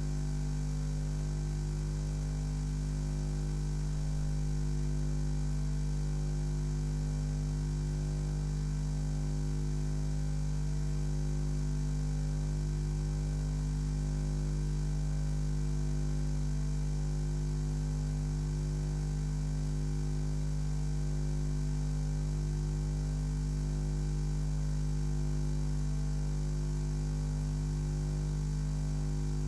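Steady low electrical mains hum, a constant buzz with faint hiss above it and no change throughout.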